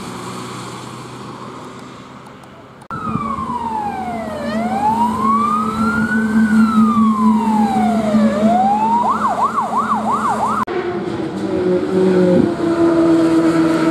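Fire engine siren wailing, sweeping slowly up and down twice, then switching to a fast yelp of about four sweeps a second, over a steady engine hum. After a sudden cut, an engine runs at a steady pitch, loudest near the end.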